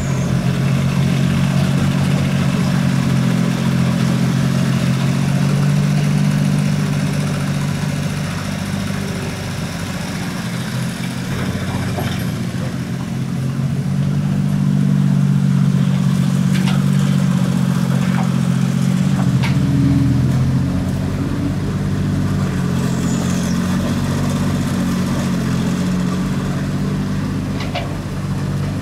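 Mini excavator's diesel engine running steadily, its note swelling and easing as the machine digs, with a few sharp knocks scattered through.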